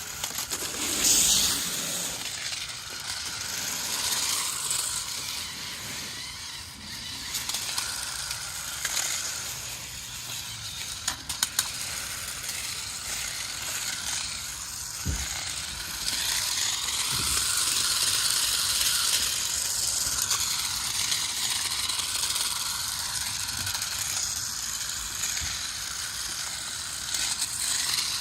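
Small electric motors and plastic gearbox of a toy 4WD RC stunt car whirring as it runs, rising and falling with a few sharp clicks about eleven seconds in.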